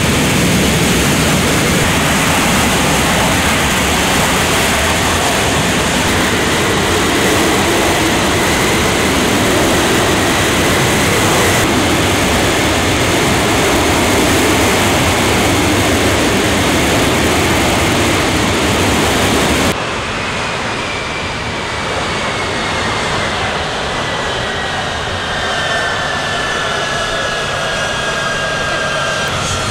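Boeing C-17A Globemaster III's four Pratt & Whitney F117 turbofans running at high power in reverse thrust to back the aircraft up, a loud steady jet roar. About two-thirds of the way in the sound cuts abruptly to a quieter engine roar, with turbine whines slowly falling in pitch.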